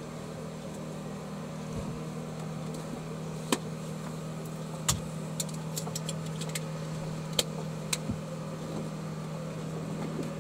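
Norman 20 Conquest cruiser's engine running steadily with a low, even hum, broken by a handful of short sharp clicks.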